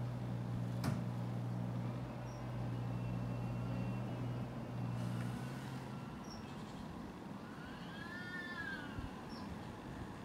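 Cats yowling in a fight: a faint drawn-out yowl a few seconds in and a louder yowl that rises and falls near the end. Under the first half runs a low steady hum that stops about halfway, and there is a sharp click about a second in.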